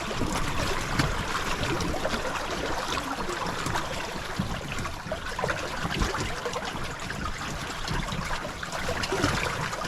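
River water splashing and trickling close to a small boat, a steady noisy wash with many small splashes throughout.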